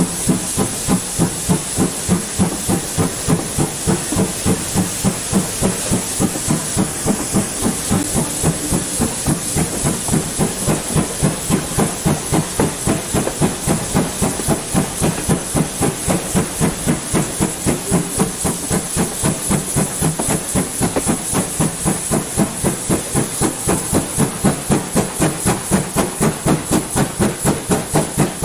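GWR steam locomotive working steadily, its exhaust beats coming evenly at about three a second over a steady high hiss.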